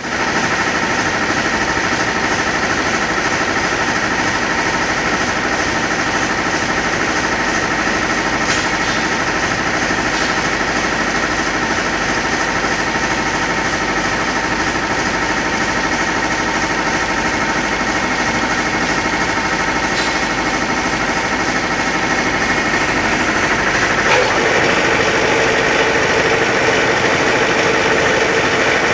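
Steady drone of an automatic powder coating line's machinery running, with a constant high whine over it. A lower hum joins about five seconds before the end, and the noise gets a little louder.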